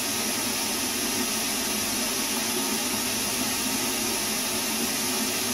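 Cold water running steadily from a faucet down the sink drain, a constant even noise.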